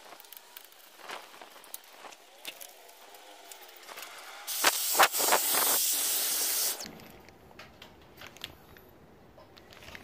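A small stiff brush scrubbing grit in a window sash rail with light scratchy strokes. About four and a half seconds in, a handheld vacuum with a crevice nozzle in the rail runs with a loud hissing suction for about two seconds and cuts off suddenly, followed by faint scraping.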